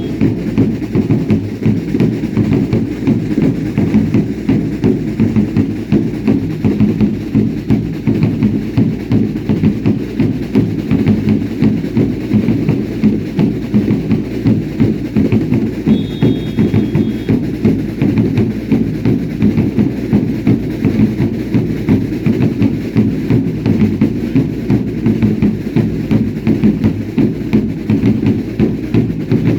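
Dance drums beating a steady, driving rhythm of about two to three strokes a second, dense and low. A short high whistle-like tone sounds briefly about halfway through.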